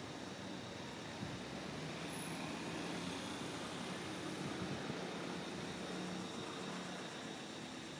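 Steady background rumble of distant motor traffic, a low engine hum under an even hiss.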